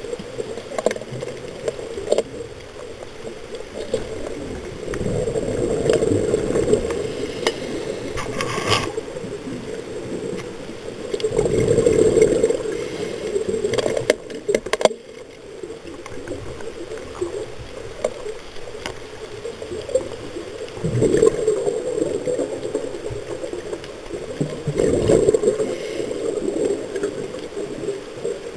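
Scuba diver breathing through a regulator underwater, exhaled bubbles gurgling in swells every several seconds, heard through an underwater camera housing. There are a couple of sharp clicks around the middle.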